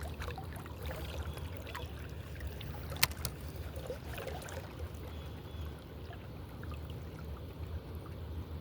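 Steady rush of river water, with scattered small clicks and one sharp click about three seconds in.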